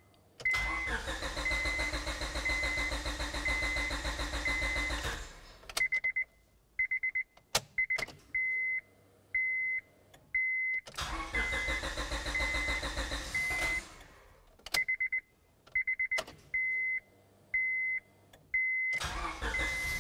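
Honda Civic's engine cranked by the starter in three spells, the first two stopping without the engine catching and the third starting near the end, while the new fuel pump primes the fuel system. A dashboard warning chime beeps repeatedly throughout.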